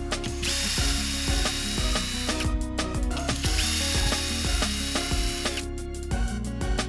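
Background music with a steady beat and bass. Over it come two bursts of a high-pitched whine with hiss, about two seconds each and a second apart, from a small power tool or a sound effect.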